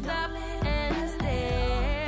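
Background pop music: a wavering melody line over a steady beat.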